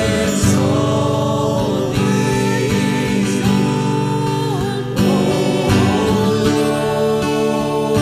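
Christian worship song: voices singing a held, repeated line over a band with guitar.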